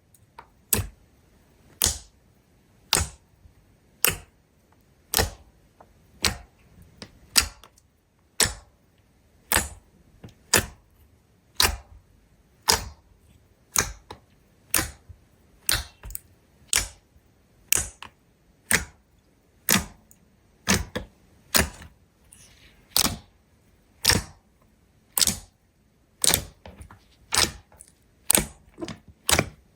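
Slime being handled, giving sharp snapping pops about once a second, coming a little faster near the end.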